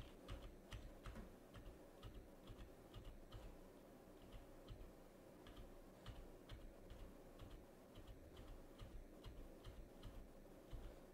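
Near silence with faint, scattered clicks, a few a second.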